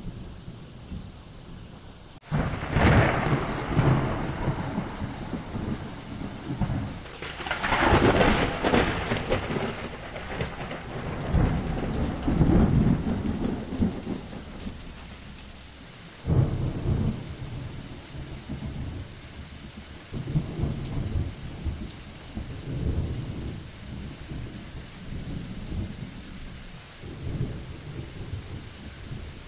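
Steady heavy rain with rolling thunder. A sharp crack about two seconds in opens a long rumble, a second, louder roll follows a few seconds later, and smaller rumbles come and go through the rest.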